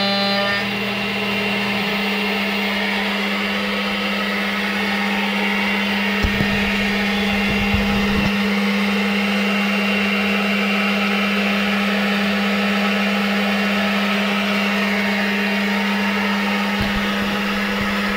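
A 7.5 hp PDS three-phase CNC spindle, run from single-phase power through a VFD, spinning a half-inch end mill through aluminum: a steady high whine under rough cutting noise. A few dull knocks come about six to eight seconds in.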